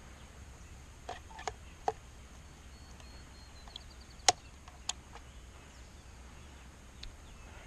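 Quiet outdoor background broken by scattered sharp taps and clicks, about half a dozen, the loudest a little past four seconds in. A faint high chirp comes around three seconds in.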